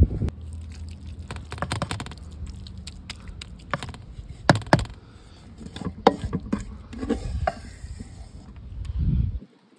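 Wooden spoon scraping and knocking against an aluminium pot while scooping out a moist meat filling, with a few sharp taps, the loudest a pair about halfway through. A low rumble runs underneath.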